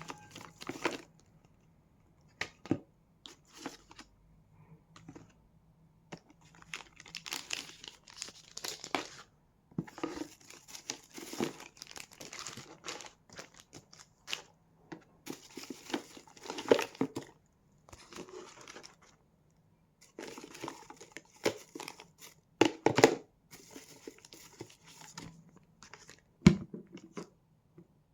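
Packaging being crinkled and torn open by hand, in irregular bursts with short pauses and a few sharper knocks.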